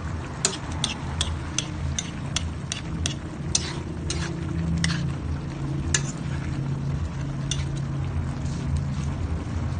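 Metal spoon stirring a pan of coconut-milk fish stew, clinking and scraping against the metal pan about two or three times a second, then more sparsely after about four seconds. A steady low hum runs underneath.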